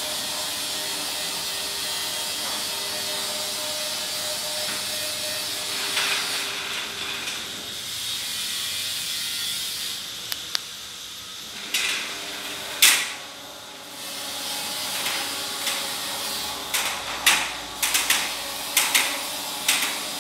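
Punched-slat rolling shutter running down with a steady mechanical hum and hiss, then a few sharp clanks once the curtain is closed, and a run of quick clicks and rattles from the slats as it starts to rise again near the end.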